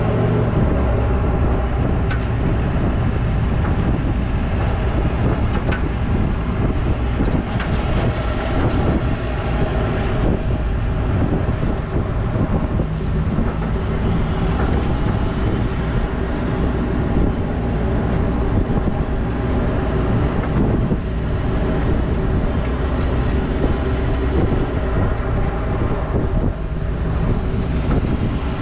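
Pickup truck engine running at a low, even speed as the truck rolls slowly over the sand, a steady drone heard from inside the cab.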